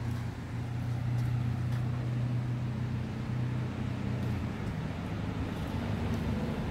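A steady low engine-like hum, holding one pitch with slight drift, over outdoor background noise.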